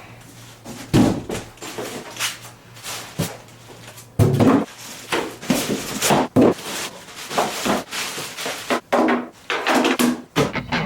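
Irregular knocks, clacks and rubbing as parts of a portable spray booth are handled, with a brief squeak near the end.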